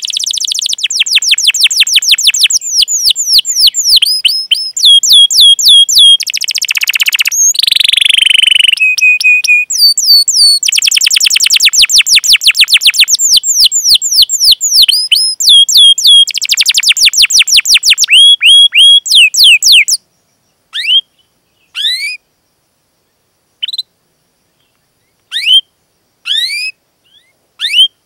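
Domestic canary singing a long, fast song of rapid trills and rolled runs of repeated chirps. About twenty seconds in the song stops, and only scattered single rising chirps follow.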